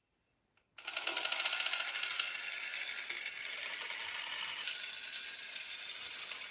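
A batch of marbles clattering and rolling down a wooden marble run, a dense stream of rapid clicks and rattles that starts suddenly about a second in and keeps going.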